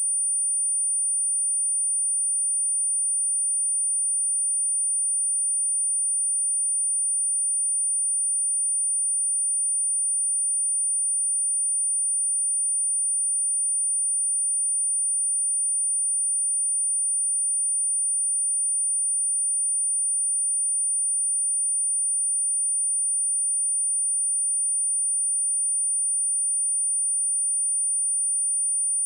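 Pure 9333 Hz sine-wave speaker test tone: a single steady, high-pitched tone held without any change.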